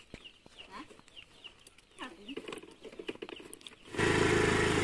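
Faint clucks and chirps of chickens and birds, then about four seconds in a TVS Scooty scooter's small engine starts abruptly and runs steadily.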